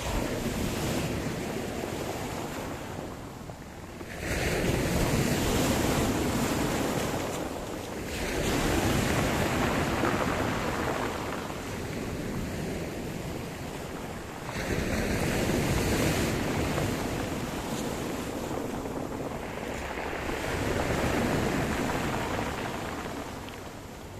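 Sea surf: waves breaking and washing in one after another, each surge swelling suddenly and fading away over several seconds, with some wind on the microphone.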